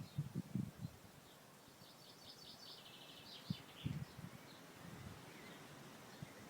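A songbird singing one short, fast trill of repeated high notes about two seconds in, with wind gusting on the microphone as low rumbles near the start and again about four seconds in.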